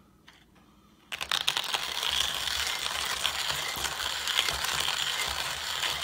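Hand-cranked stainless steel conical burr coffee grinder with a ceramic burr grinding whole roasted coffee beans: a continuous crunching crackle of many fine clicks that starts about a second in.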